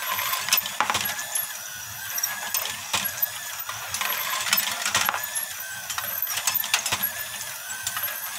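Meccano bucket-chain lift running, its metal chains and buckets clinking and steel balls clicking and rattling as they are carried up, in an irregular clatter of many small metallic clicks.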